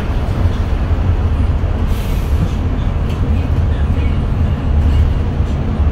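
Cabin sound of a 2018 Daewoo NEW BS090 city bus on the move: its GL08P compressed-natural-gas engine running with a steady low rumble under road noise. A brief hiss comes about two seconds in.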